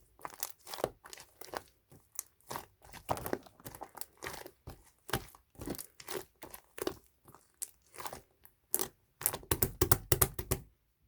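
Hands squishing and pressing an opaque slime, making a rapid series of sticky clicks and pops. The pops bunch into a fast flurry near the end, then stop abruptly.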